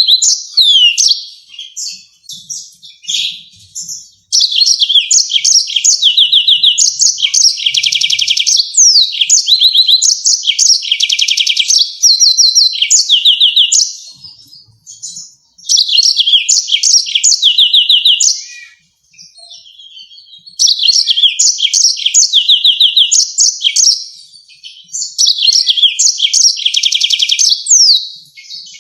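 Yellow-fronted canary singing: long bouts of fast trills and rapidly repeated sharp notes, broken by short pauses of a second or two.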